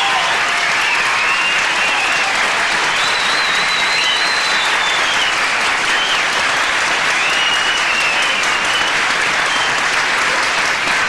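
Audience applauding steadily, with several drawn-out high-pitched calls rising and falling over the clapping.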